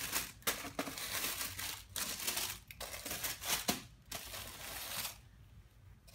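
Tissue paper rustling and crinkling as hands unfold it in a shoe box, in a run of irregular bursts that dies down about five seconds in.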